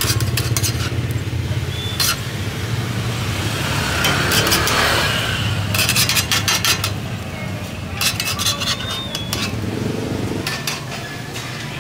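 Metal spatula clicking and scraping against a multi-cup pancake pan in short clusters as pancakes are lifted out, over a steady low hum, with a swell of noise about four to five seconds in.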